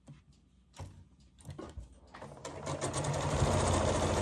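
Sewing machine starting up about two seconds in and running steadily, stitching a seam through strips of fabric. Before it starts, a few faint taps and rustles of the fabric being handled.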